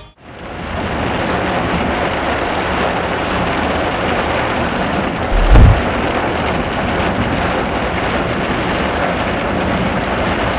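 Heavy rain falling steadily, fading in at the start, with one short low rumble of thunder about five and a half seconds in, the loudest sound.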